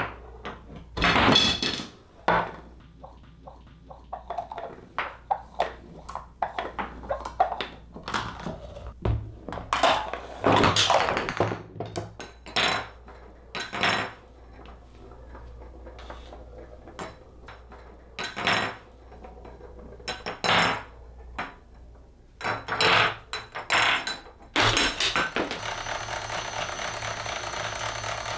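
Tabletop Rube Goldberg chain reaction: a rapid, irregular series of knocks, clatters and rolling as small objects such as plastic cups, wooden blocks and a ball tip over, drop and strike the wooden table. Near the end a steady mechanical whirring takes over.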